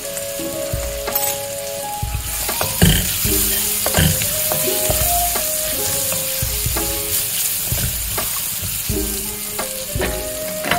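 Sliced vegetables sizzling in hot oil in a wok while a spatula stirs them, with repeated scrapes and knocks of the spatula against the pan.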